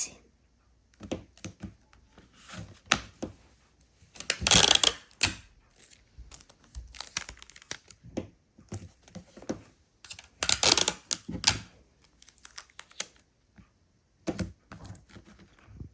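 Paper pieces and tape being handled and pressed down by hand: scattered light taps and rustles, with two louder rustles, about four seconds in and again about ten and a half seconds in.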